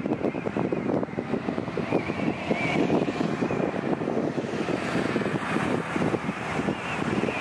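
Wind buffeting the microphone in uneven gusts over ocean surf.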